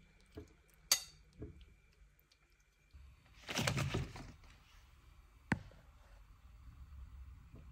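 A few sharp clicks and knocks, then about a second of rustling as a bunch of spring onions is handled and laid on a wooden cutting board, followed by one more sharp click.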